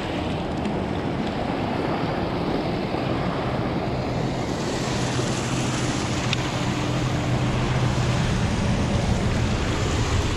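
Boat motor running over open water, with steady wind and water rush on the microphone. A low steady hum joins about three seconds in.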